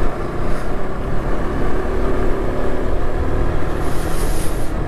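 KTM RC 200's single-cylinder engine running steadily as the motorcycle rides along, with wind rumbling on the rider's microphone.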